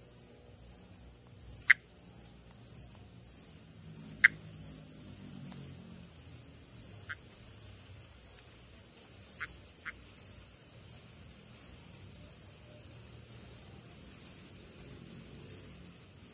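Northeastern monkey tree frog (Pithecopus nordestinus) giving short, sharp click-like calls, five in all spaced a few seconds apart, the first two loud and the rest fainter. Behind them is a steady high-pitched insect trill.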